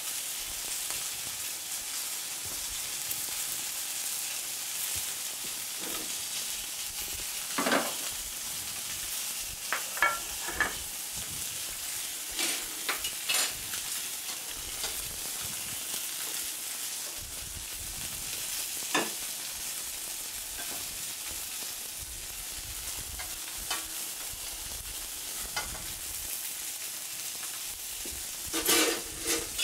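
Turbot fillet frying in a hot pan, its fat sizzling in a steady high hiss. A few short knocks and clinks of kitchen utensils break in now and then.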